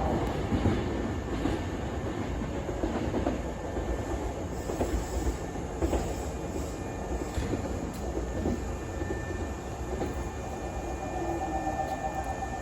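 Hankyu electric train running along the platform, its wheels clicking over the rail joints, with a thin steady whine coming in during the second half.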